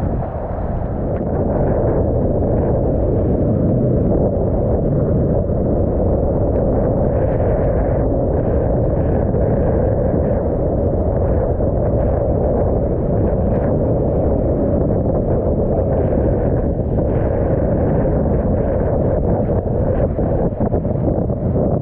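Wind buffeting a kitesurfer's action-camera microphone, a loud steady rumble, with the board rushing through choppy water underneath.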